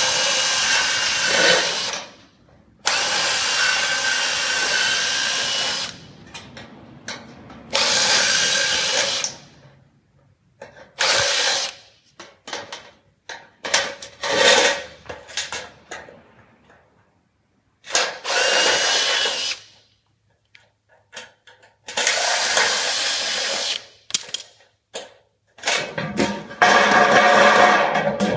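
Cordless power tool working the sheet-steel end of a box gutter, its motor whining in about eight separate bursts of one to three seconds with short pauses between.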